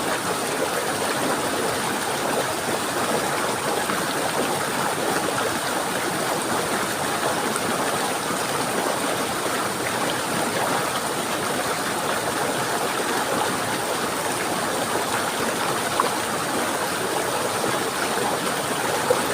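Flowing water running steadily in an even rush, with two brief faint ticks near the end.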